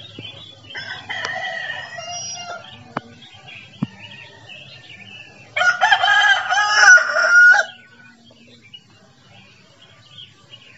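A rooster crowing: a softer crow about a second in, then one loud crow lasting about two seconds past the middle.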